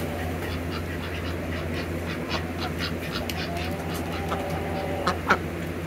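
Domestic ducks quacking, short calls in quick succession over a steady low hum, with two sharp louder calls near the end.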